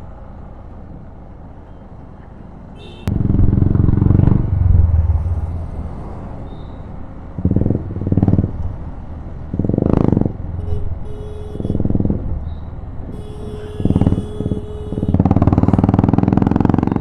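Hero XPulse 200 4V's single-cylinder engine and rushing wind while riding in city traffic at about 33 km/h. The sound is a low, steady rumble for the first three seconds, then comes in repeated loud surges.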